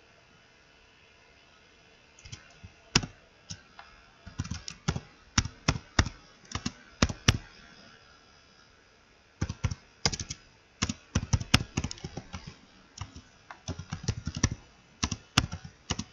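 Typing on a computer keyboard: quick runs of key clicks starting about two seconds in, a pause of about two seconds in the middle, then more typing.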